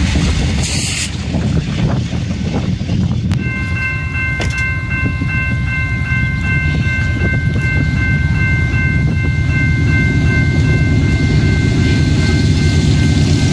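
Freight train rumbling past on the near track. After a cut, a railroad grade-crossing warning bell rings at about two strikes a second over the low diesel rumble of approaching BNSF locomotives.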